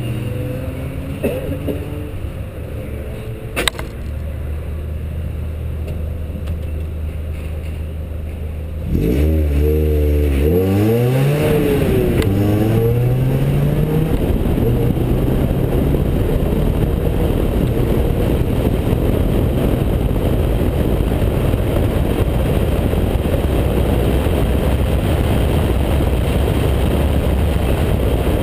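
Mazda MX-5 Cup car's four-cylinder engine idling, with a single sharp click about four seconds in. About nine seconds in the engine revs up as the car pulls away, climbing in pitch through a few quick upshifts. It then runs on hard at speed under a steady rush of wind noise.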